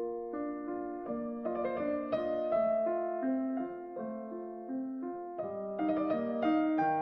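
Samsung Galaxy A54 calm ringtone: a gentle electric-piano melody of short single notes over held lower notes, growing fuller and brighter about five seconds in.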